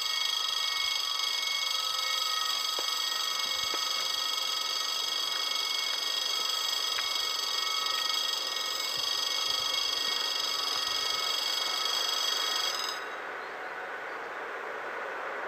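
Level-crossing warning bell ringing steadily, cutting off suddenly about 13 seconds in; after that, the rumble of an approaching train starts to build.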